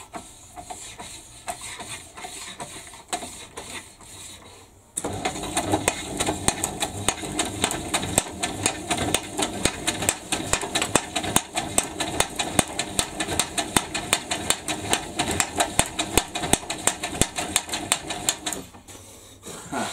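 Home-built reciprocating rig, an electric motor driving a bent shaft that pushes an old tile cutter's sliding carriage back and forth, running with a fast, even slapping clatter from play in the linkage. It runs faintly at first, comes in loud about five seconds in, and stops shortly before the end.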